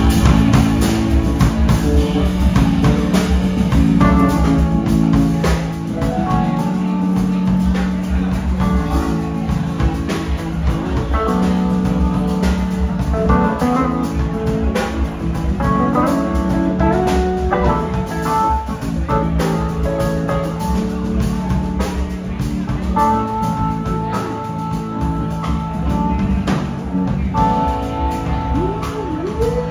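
Live band playing amplified music: electric guitar, electric bass and drum kit with keyboard, over a steady beat.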